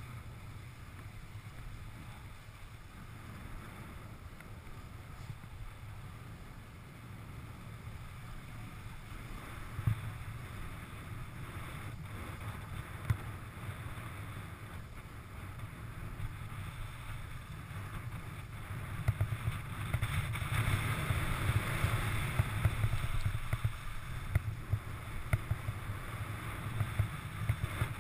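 Wind buffeting the microphone of a camera worn by a downhill skier, over the hiss and scrape of skis on packed snow. It grows louder and rougher about two-thirds of the way in, with scattered crackles.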